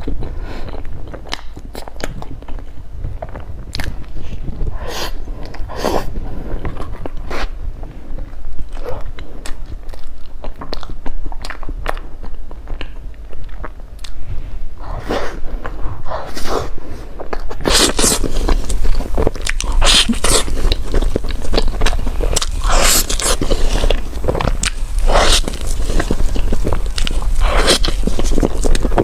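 Close-miked eating sounds: a person biting and chewing food with wet clicks and crackles, turning into louder, crisper crunching about two-thirds of the way through.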